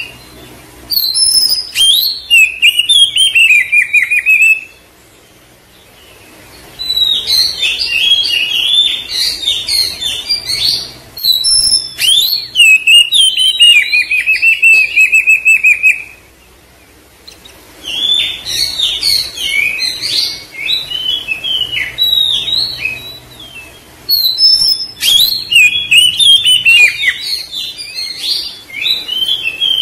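Oriental magpie-robin (kacer) singing a loud, fast, varied song of sharp chirps, whistles and rapid trills, in bursts of several seconds broken by short pauses. It is a lure song (pancingan) meant to provoke a silent, stressed kacer into singing.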